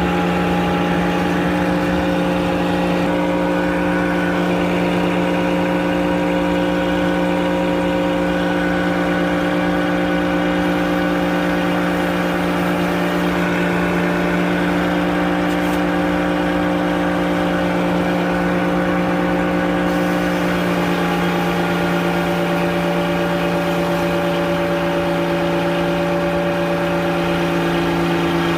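Frick circular sawmill running steadily: a constant mechanical hum made of several held tones, with a slight shift in pitch about twenty seconds in.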